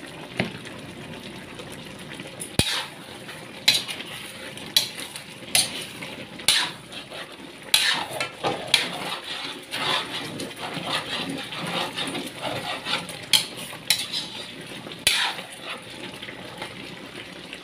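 Metal ladle stirring chicken stew in a large aluminium wok, clinking and scraping against the pan in repeated, irregular knocks, over a steady hiss from the simmering sauce.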